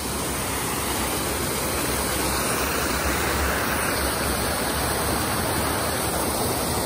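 Steady rush of flowing water, an even unbroken noise with no change in strength.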